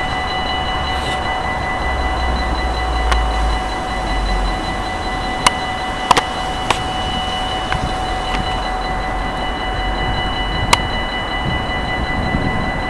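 Dutch level-crossing warning bell ringing continuously at a steady pitch, with a few sharp clicks scattered through.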